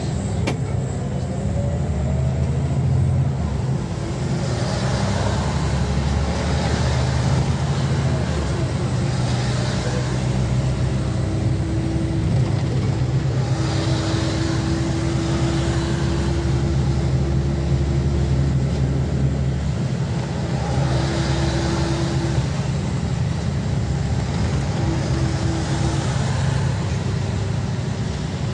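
Scania OmniLink city bus heard from inside the passenger cabin while driving: a steady low engine and drivetrain rumble with a faint whine that comes and goes, and tyre and traffic hiss from the wet road swelling every few seconds.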